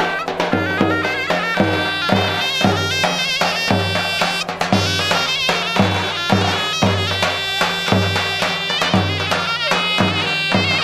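Traditional folk music: a reedy, piercing wind instrument plays an ornamented melody over a steady drum beat of about two strokes a second.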